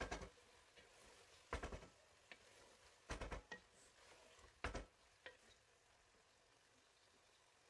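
Wooden spoon stirring chicken pieces in a stone-coated cooking pot: several short scrapes and knocks against the pot, about a second or so apart, stopping after about five seconds.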